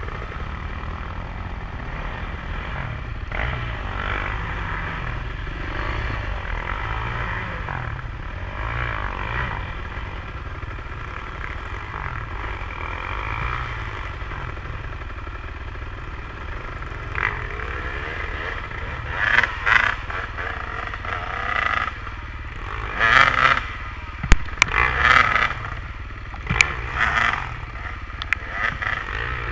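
KTM enduro dirt-bike engines running at a steady low throttle, then revved in a series of short bursts over the second half as the bikes work up a steep muddy climb, with a few sharp knocks near the end.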